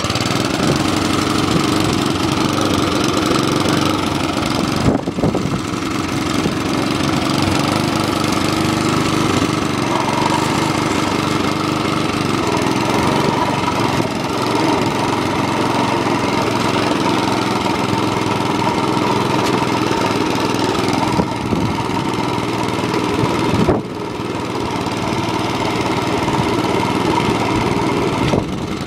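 Commodore 17B cylinder lawn mower's small petrol engine running steadily at half choke just after starting.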